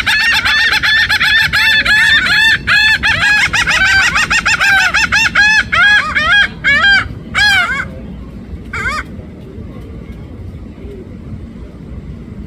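A flock of laughing gulls calling over one another in short arched calls that sound like a puppy. The calls are dense for about seven seconds, thin out, and stop after a last call about nine seconds in, leaving a low steady background rumble.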